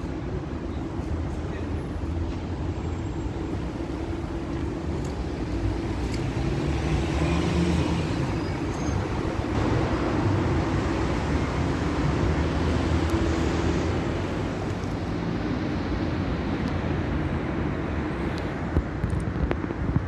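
Steady low rumble of road traffic, swelling in the middle and easing slightly afterwards, with a few sharp clicks near the end.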